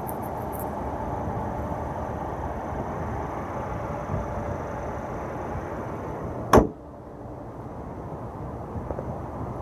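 The hood of a 2015 Mercedes-Benz C300 is lowered and shut with one sharp slam about two-thirds of the way through, over a steady background hiss that is quieter after the hood closes.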